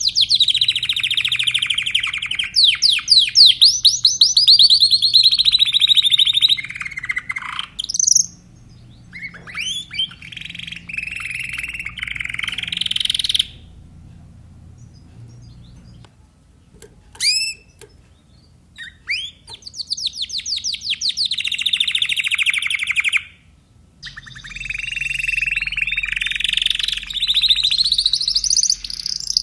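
Timbrado canary singing long phrases of rapid trills and rolls. About midway the song breaks off for a few seconds of short single chirps, then the trilled phrases resume twice.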